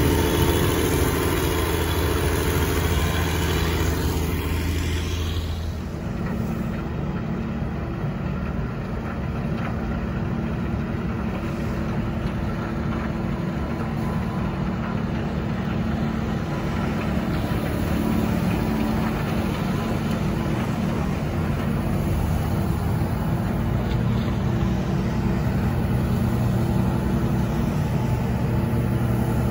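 Cat 160M motor grader's diesel engine running close by, a steady low drone. About six seconds in it gives way to the steadier drone of a Larue D60 snow blower working up the street, with a dump truck following it.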